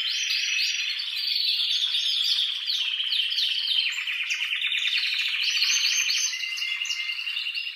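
Male canary singing an excited, continuous song: quick repeated sweeping notes, then fast rolling trills, with a few long steady whistled notes near the end.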